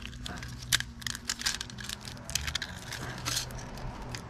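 Flat steel coil spring from a 2016 Mazda CX-5 seat belt retractor being unwound by hand: an irregular run of light metallic clicks and scrapes as the coils pull free. The spring has snapped in several places, which is why the seat belt has lost its tension and won't retract.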